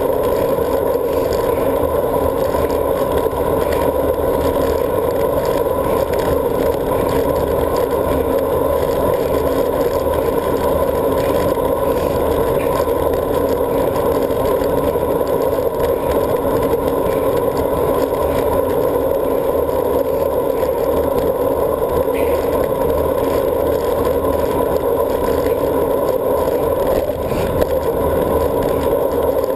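Steady wind rush and tyre noise from a road bike rolling along asphalt, picked up by a handlebar-mounted GoPro camera.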